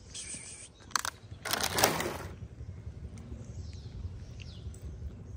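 A clear plastic tray of cat food being handled and set down on asphalt: a sharp click about a second in, then a short, loud plastic rustle, over faint street background.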